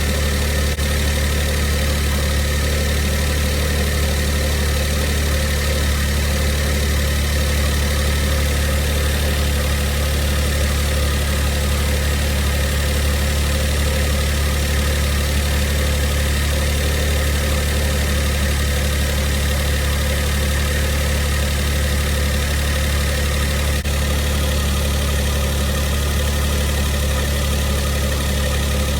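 Mitsubishi i's three-cylinder kei-car engine idling steadily. The owner is recording its abnormal noises: a rattle he puts down to a failing air-conditioning compressor, and a whirring from inside the engine whose cause he does not know.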